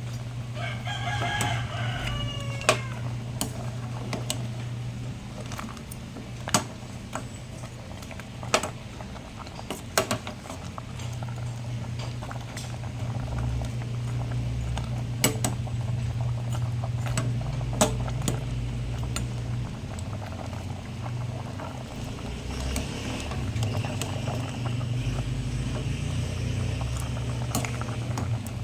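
A chicken calls briefly about a second in, and faintly again near the end, over a steady low hum. Sharp knocks sound now and then throughout.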